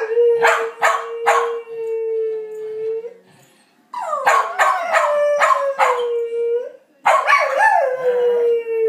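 A Blue Heeler (Australian cattle dog) howling: three long, drawn-out howls, each held at a steady pitch, with short sharp yips over the start of each howl.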